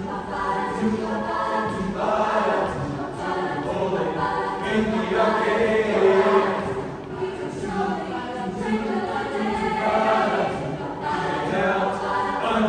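Mixed-voice youth choir singing a cappella in harmony.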